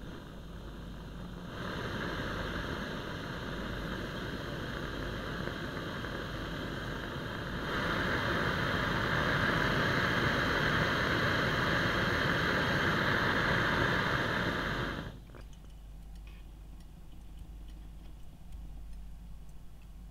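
Kovea TKL-N894 butane gas lantern's burner hissing steadily. It gets louder in two steps as the valve is turned up, then cuts off sharply about three-quarters of the way through as the gas is shut off.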